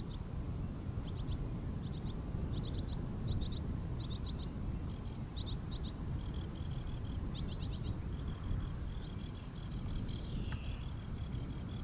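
Small songbird calling in short clusters of high ticking notes that run into a fast, continuous chatter about halfway through. A steady low rumble lies underneath.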